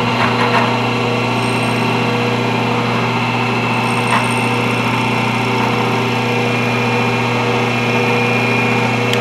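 Grizzly vertical milling machine running with its spindle turning an end mill, not yet in the cut: a steady motor hum with a higher whine.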